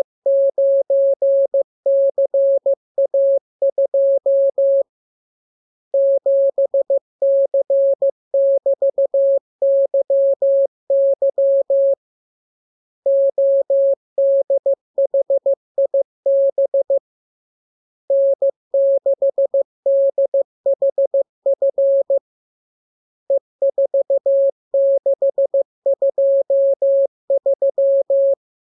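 Morse code (CW) sent as a single steady mid-pitched tone, keyed rapidly on and off in dots and dashes. The characters come in runs of several seconds with pauses of about a second between them.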